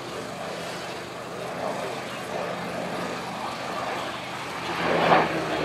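Hawker Hurricane's Rolls-Royce Merlin V12 engine running steadily as the fighter flies in, swelling louder about five seconds in as it comes overhead.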